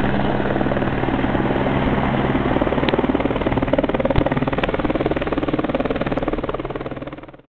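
A motorboat engine running steadily with a low, even throb, fading out just before the end.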